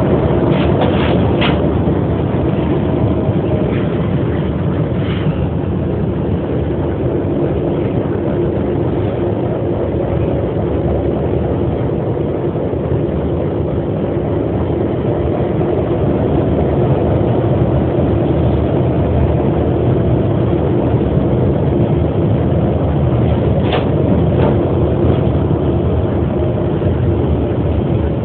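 Diesel locomotive engine running steadily as the locomotive rolls along, heard from on board close to the engine, with a few short clicks in the first couple of seconds and again near the end.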